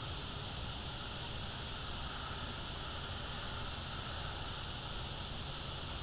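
Steady outdoor background hiss from the nest camera's microphone: an even band of noise in the upper range over a low rumble, with no distinct call or knock.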